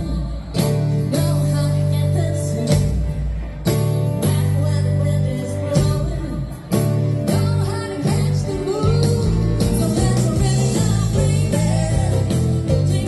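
Live dance band playing through a PA: a woman singing lead over electric guitars, bass, keyboards and drums.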